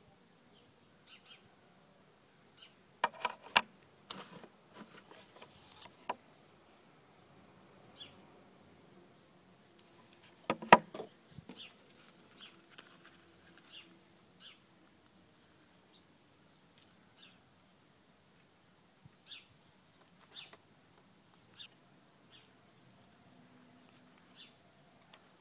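Handling noise as accessories are picked up and set down by hand: scattered small clicks, taps and rustles, with a cluster of clicks about three seconds in and one sharp knock, the loudest sound, about ten seconds in.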